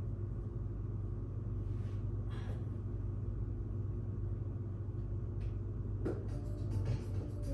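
Low, steady bass of a pop backing track with little above it, heard as a rumble. Faint brief taps come about two and six seconds in.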